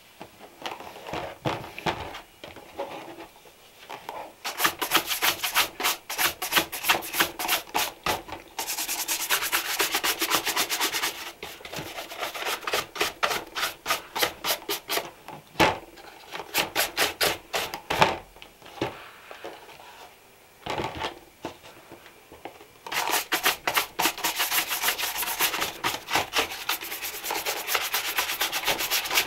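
Quick back-and-forth rubbing strokes on a leather shoe, several strokes a second, in runs broken by short pauses.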